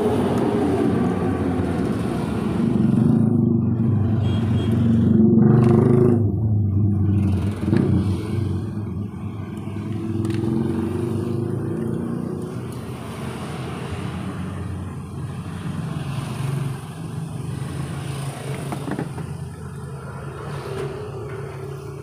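A motor vehicle's engine running, loudest about five seconds in and then slowly fading.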